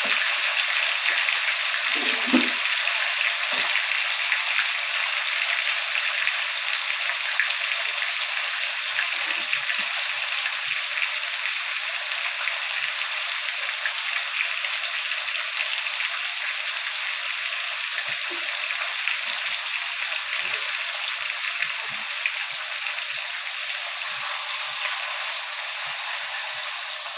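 Pot of brown stew fish sizzling and bubbling as it cooks down in water and seasoning: a steady hiss with fine crackle that slowly gets quieter.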